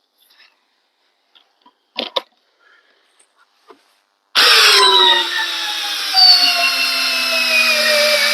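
Two sharp clicks about two seconds in. Then, about four seconds in, the Makita XGT GFD01 40V brushless drill starts and runs under load in drill mode, driving a fastener into a hole during a torque test. Its whine sinks slowly in pitch as the load builds.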